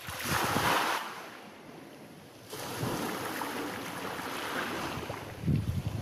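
Small waves breaking on a pebble beach: one wave breaks at the start and its hiss dies away over about two seconds, then a second wave washes up over the stones about two and a half seconds in. Near the end, wind buffets the microphone with low gusts.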